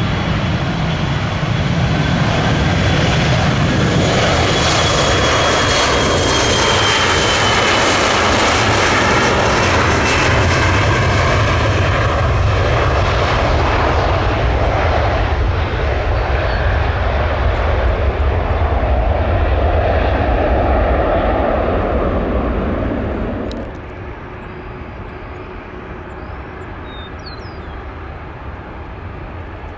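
Embraer E175 regional jet's twin GE CF34-8E turbofans on departure: a loud jet roar with a high fan whine that slowly falls in pitch as the aircraft passes. The roar drops off sharply about 24 seconds in, leaving fainter jet noise and a few bird chirps.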